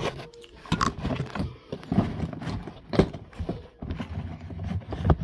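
Handling noise on a phone held close: a quick, uneven run of knocks and rubbing as the microphone bumps and brushes against clothing and a plush toy.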